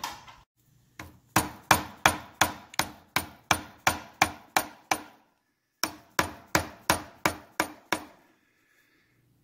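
A mallet rapping a wrench on the engine-sprocket nut of a 1971 Triumph Tiger 650's primary drive to tighten it down, with a short ring to each blow. The blows come about three a second in two runs, with a brief pause between.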